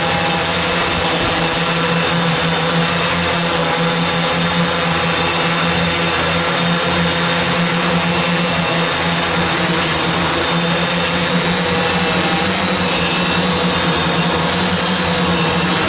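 Multicopter drone's electric motors and propellers running steadily in flight, a loud even hum.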